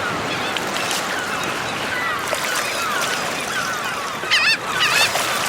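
Seagulls calling repeatedly over a steady wash of small waves breaking on a shore, with a louder, wavering gull call about four and a half seconds in.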